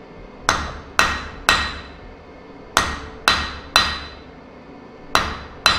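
Blacksmith's hand hammer striking a steel bar on the anvil while forging a spike point: eight ringing blows, three, a short pause, three more, a pause, then two, as the bar is worked face by face.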